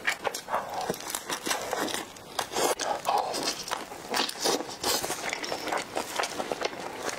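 Close-miked biting and chewing of a chili-oil-dipped sausage casing stuffed with glass noodles, with many quick wet mouth smacks and clicks.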